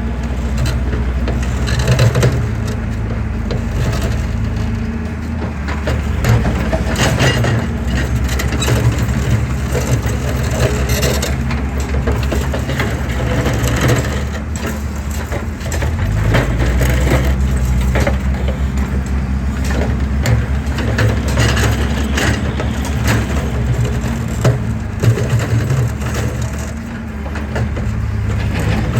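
An excavator crushing concrete: many sharp cracks and crumbling over its diesel engine running steadily under load.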